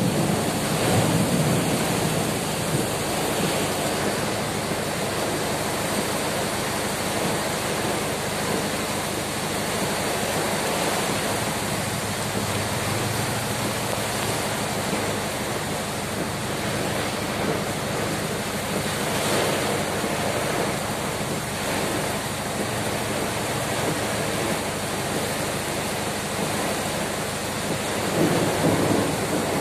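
Heavy storm rain pouring with strong wind blowing through the trees, a steady dense rush that swells louder about a second in and again near the end.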